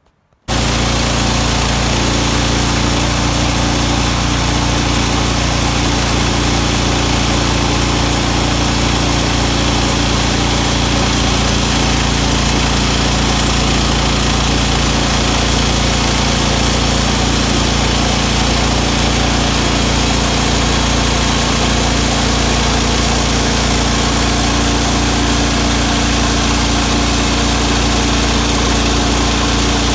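Sawmill's engine running steadily at speed, starting suddenly about half a second in and holding an even, unchanging drone.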